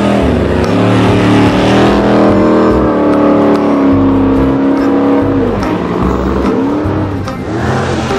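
A car engine sound effect revving, its pitch rising and falling several times.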